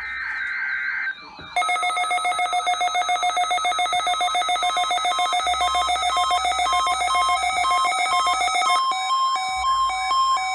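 Electronic alert tones: a brief warbling tone, then from about one and a half seconds in a loud, rapidly pulsing ringing tone held on steady pitches, which near the end changes into a quick stepping sequence of beeps at changing pitches.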